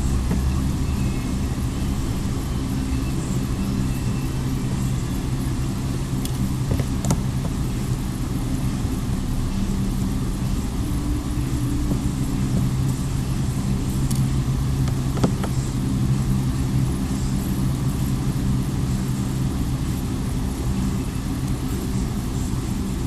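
Steady low mechanical hum, like a motor or engine running, with a few faint small clicks, about 7 and 15 seconds in, from the screws of the phone's back housing being worked out with a small Phillips screwdriver.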